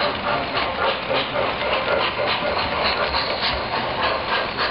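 O-gauge model train running past on the track: a steady rumble of its wheels and motor with a quick, uneven run of clicks.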